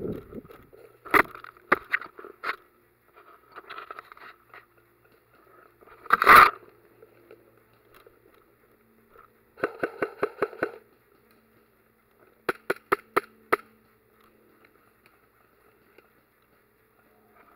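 Airsoft gun fire: a few single shots early on, a louder sharp crack near the middle, a rapid burst of about eight shots, then a quick string of about six shots. Between the shots there is faint crunching and brushing through leaf litter and undergrowth.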